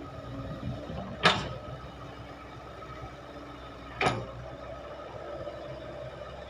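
Heavy diesel machinery running steadily, with two sharp knocks about three seconds apart; the first knock is the loudest.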